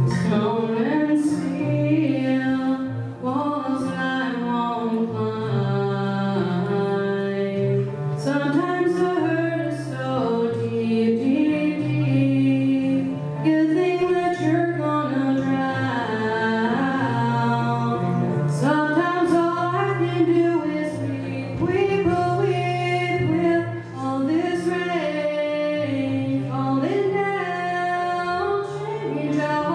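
A young woman singing a song into a microphone, with a melody that rises and falls over instrumental accompaniment of long held low notes.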